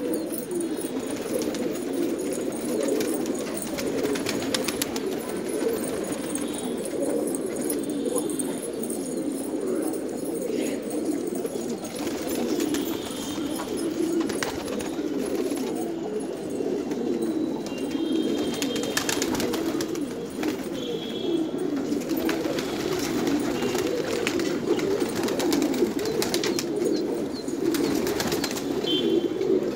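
A loft full of domestic pigeons cooing continuously, many coos overlapping into one unbroken low sound, with scattered sharp clicks.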